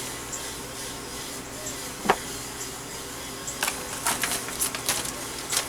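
Paper rustling as quilt-pattern packets are handled, in short scratchy bursts in the second half, over a steady low room hum. A single short tap about two seconds in.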